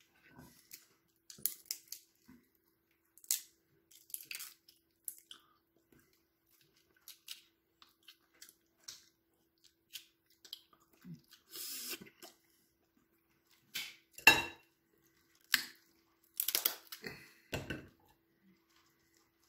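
Someone eating cooked snow crab: irregular cracks and clicks of shell being broken and picked apart, with clatter on a plate. The loudest is a sharp crack about two-thirds of the way through.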